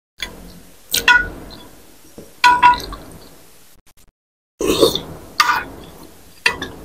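Metal spoon and fork clinking and scraping against a glass bowl of lontong sayur curry. There are several sharp clinks with a short ring, and eating mouth sounds between them. The sound drops out completely for about half a second around four seconds in.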